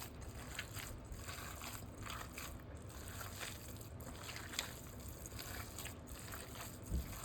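Hands squishing and kneading a raw ground beef mixture with breadcrumbs and egg: faint, irregular wet squelching with soft clicks, and a low thump about seven seconds in.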